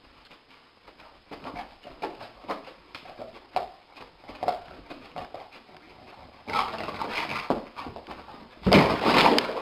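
A dreaming dog asleep on carpet gives a string of soft, muffled little woofs while its legs paddle. It then scrambles to its feet and runs, paws scrabbling, with a sudden loud bump near the end.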